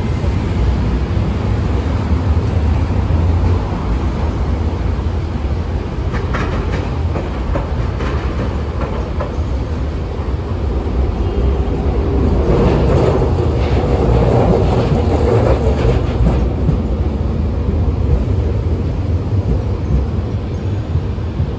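Hiroshima Electric Railway 800-series tram rolling along street track, its wheels rumbling on the rails with scattered clicks. The sound is loudest from about twelve to sixteen seconds in, as the tram passes close by.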